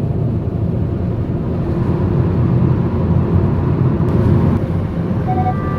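Steady low road and engine noise heard from inside a car driving at highway speed. A few notes of music come in near the end.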